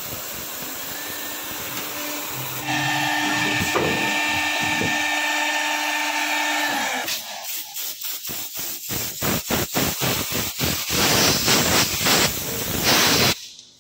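CNC panel drilling and milling machine cutting melamine-faced board with its dust extraction running. About three seconds in, a louder steady spindle whine sets in. From about halfway it changes to a rapid pulsing sound, and everything cuts off suddenly near the end.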